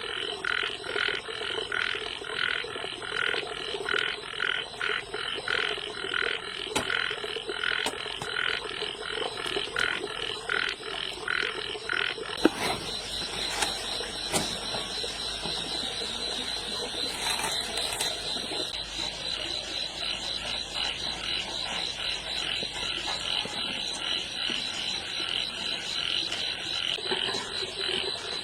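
Frogs croaking in a steady rhythm, about two calls a second, over a steady high-pitched trill. There is a single sharp click about twelve seconds in.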